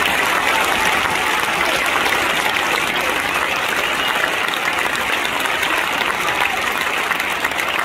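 Large crowd applauding steadily, a dense unbroken wash of clapping.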